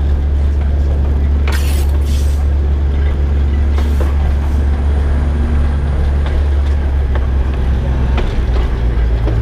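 Diesel locomotive (DL-41) engine running with a steady low drone, with short hissing bursts about a second and a half and four seconds in.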